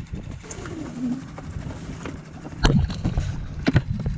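Two sharp knocks about a second apart over a low rumble, with a short low falling hum about a second in.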